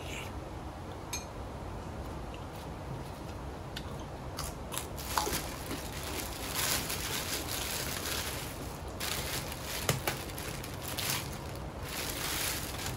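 Chewing and crunching food, with irregular crisp crunches starting about four seconds in.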